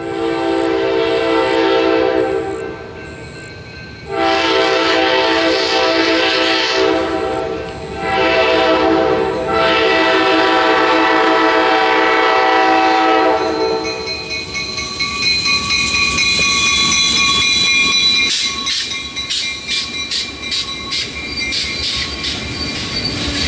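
Diesel locomotive horn of the Amtrak Heartland Flyer sounding the grade-crossing signal: long, long, short, long. Then the train passes with wheels clattering over the rail joints and squealing in high tones.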